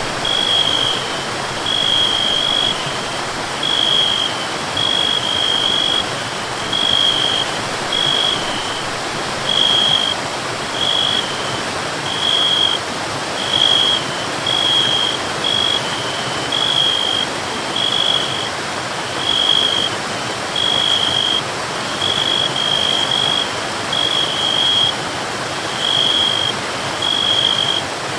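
Steady rush of a forest waterfall, with a short high note repeating about every second, some of them doubled.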